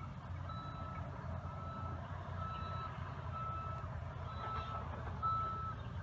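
Reversing alarm on heavy earthmoving machinery, a single-pitched beep of about half a second repeating roughly once a second, over the steady low rumble of the machines' engines.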